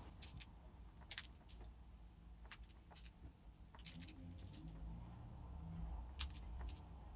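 Faint, scattered small metallic clicks and ticks of tiny brass lock pins being picked up and dropped into the pin holes of a euro cylinder barrel, trying pins until each one sits flush.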